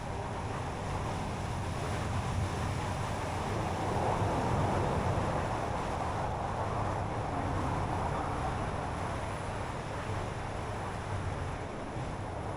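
Car driving on the road: steady tyre and engine noise with a low hum, swelling a little about four seconds in and easing off again.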